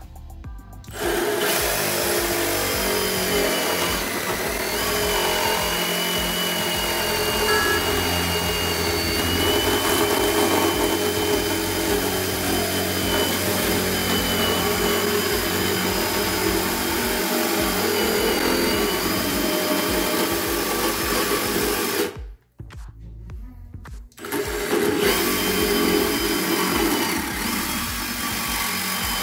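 Power saw cutting through a PVC drain pipe to trim it level with the gasket: a steady motor whine with the grinding noise of the cut. Near the end it stops for about two seconds, then cuts again.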